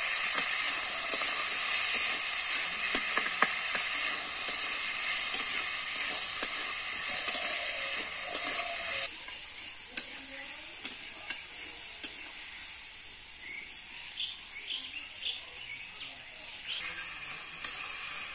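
Sliced flat beans, potatoes and carrots sizzling as they fry in hot oil in a steel karahi, with a steel spatula clicking and scraping against the pan as they are stirred. About nine seconds in the sizzle drops sharply to a softer frying hiss with occasional spatula clicks.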